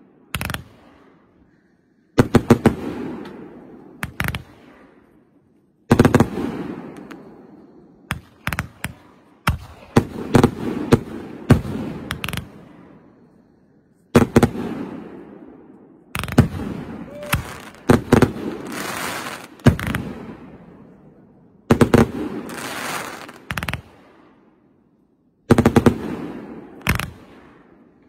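Aerial fireworks bursting overhead: sharp bangs every few seconds, often several in quick succession, each volley trailing off in a fading rumble.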